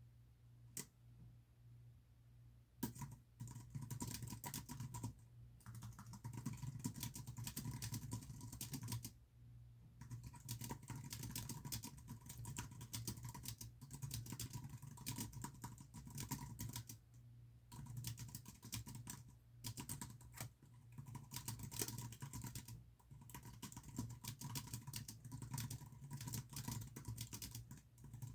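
Computer keyboard typing in fast runs of key clicks with brief pauses between them, starting about three seconds in, over a steady low hum.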